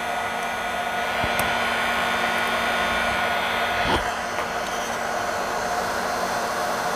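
Steady blowing hiss with a faint motor hum from the hot air gun and exhaust fan running over the soldering work, with a slight change in tone about four seconds in.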